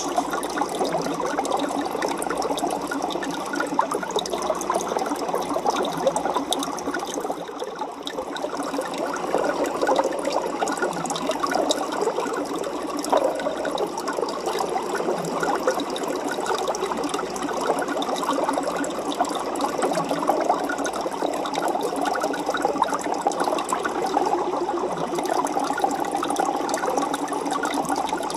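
Aquarium water bubbling and trickling steadily, a dense patter of small crackles that dips briefly about a third of the way through.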